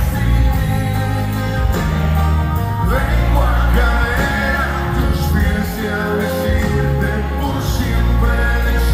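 Live band playing a Latin Christian pop ballad: drums, electric bass, keyboard and acoustic guitar, with a singer's voice over it.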